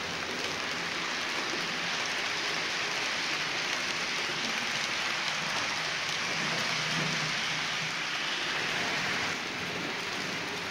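H0-scale model freight train of tank wagons rolling past on the layout's track: a steady rushing rattle of metal wheels on the rails. It drops slightly about nine seconds in.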